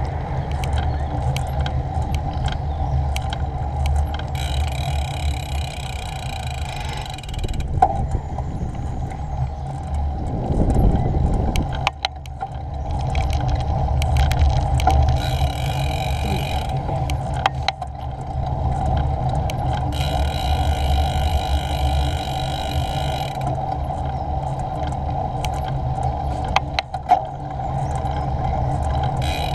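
Bicycle riding along a road, picked up by a GoPro on the bike: steady tyre and road rumble with wind noise, and a higher buzzing that comes and goes several times, plus a few clicks.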